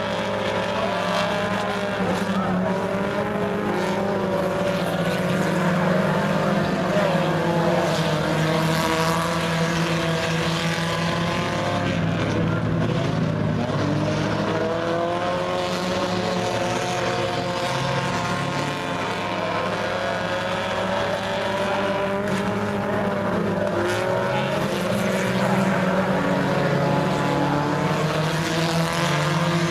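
A pack of U-car class dirt-track race cars running heat laps, several engines at speed at once, their overlapping pitches rising and falling continuously.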